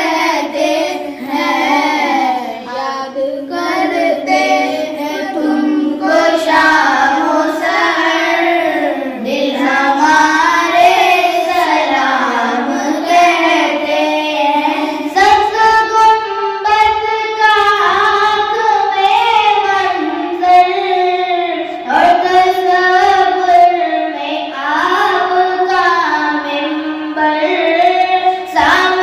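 A boy singing an Urdu devotional salam solo and unaccompanied, in long wavering held notes.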